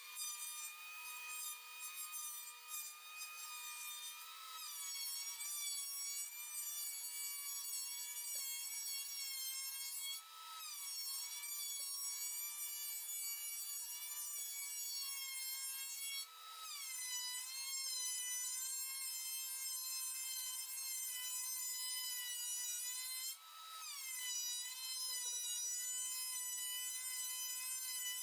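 Thickness planer running with a rough-sawn pine board feeding through, its motor giving a steady whine under the cut. About every six seconds, four times in all, the whine sags briefly in pitch and level as the motor bogs down, then picks back up.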